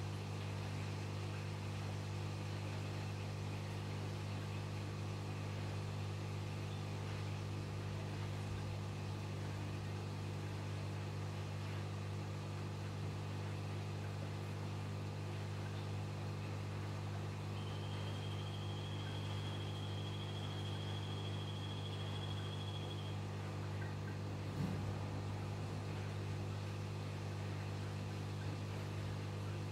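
Aquarium pump running: a steady low electrical hum over a faint hiss. A thin high whine sounds for about five seconds just past the middle, and a single click comes near the end.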